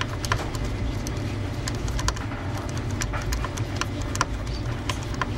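A nut driver tightening a small nut on the VCR's tape-loading lever: scattered light metallic clicks and ticks, irregularly spaced, over a steady low hum.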